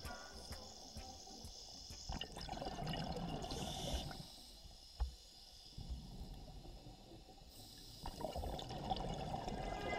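Scuba diver's exhaled air bubbling out of the regulator, heard underwater: a bubbling hiss swelling about two seconds in and again about eight seconds in.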